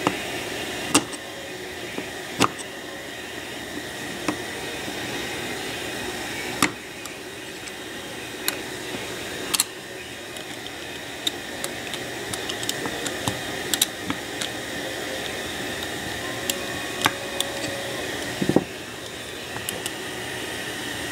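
Small sharp clicks and taps of metal parts being handled, scattered irregularly, as the little springs are fitted onto the tabs of a Corvair distributor, over a steady background hiss.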